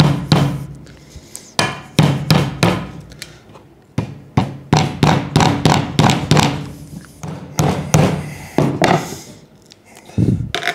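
Repeated hammer blows on metal, in bursts of several strikes with short pauses between, as a small aluminium bush is driven out of a Porsche 964 rear suspension arm.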